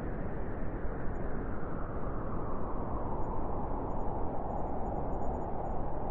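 Wind blowing steadily, a continuous rushing noise whose pitch sinks a little and then rises again near the end.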